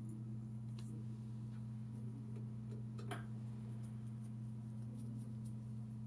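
Steady low electrical hum of room tone with a few light, sparse clicks, the sharpest about three seconds in.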